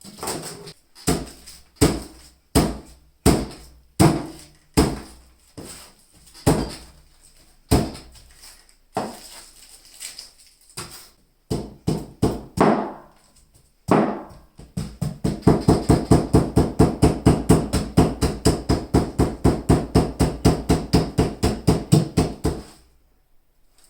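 A spoon knocking and digging into a pineapple, with separate sharp knocks about once a second. From about 15 seconds in comes a fast, even run of about four knocks a second.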